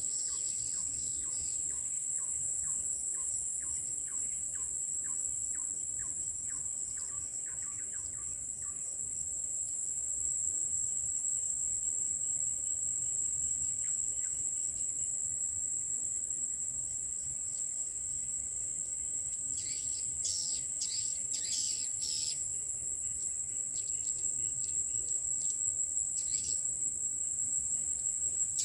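Swiftlets chirping in short high twittering clusters through the second half, over a steady high-pitched insect drone. A regular ticking call repeats about twice a second for the first nine seconds.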